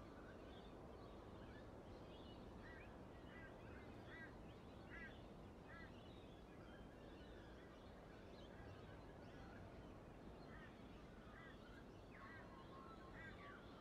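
Near silence: faint steady room hiss with scattered short bird calls in the background, a run of them a few seconds in and more near the end.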